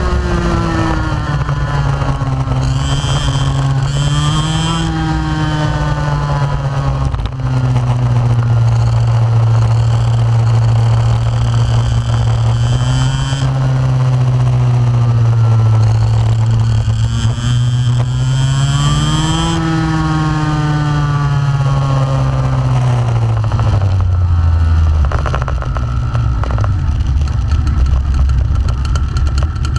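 Onboard sound of a 125cc two-stroke kart engine under way, its pitch rising and falling again and again as the kart speeds up and brakes through the corners. Near the end the pitch slides down and stays low as the kart slows to a crawl.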